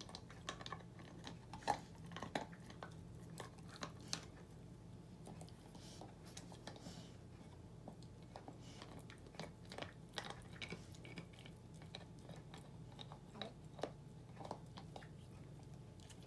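Rottweiler puppy gnawing a red deer antler: irregular clicks and scrapes of teeth on hard antler, with a few sharper cracks, the loudest about two seconds in.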